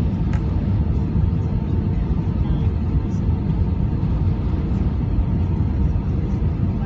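Steady low rumble of a jet airliner's engines and rushing air, with a faint steady hum above it.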